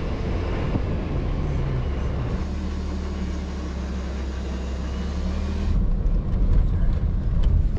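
Jeep Wrangler driving on a dirt road: a steady low engine drone over road and wind noise. About three-quarters of the way through it turns to a louder, deeper rumble as heard inside the cabin.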